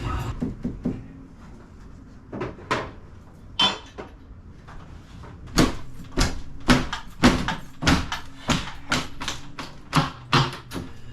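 Sharp knocks and bangs from tool work on a garage door, a few scattered at first, then coming about two a second from the middle on.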